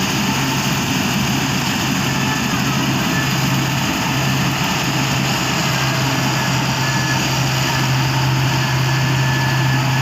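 Combine harvester cutting wheat: its engine runs at a steady low drone under a constant rushing noise from the machine.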